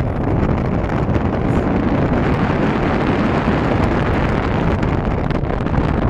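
Wind buffeting the microphone on the open deck of a ship under way at sea: a dense, steady rushing noise.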